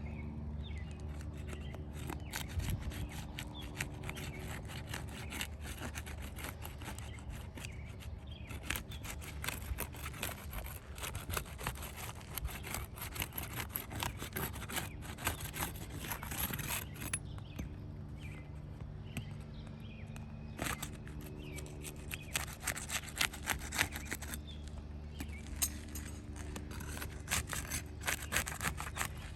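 A pry tool scraping and clicking under roof shingles, working them loose before the nails are pulled, in irregular strokes that come thickest in two long spells. A steady low hum runs underneath.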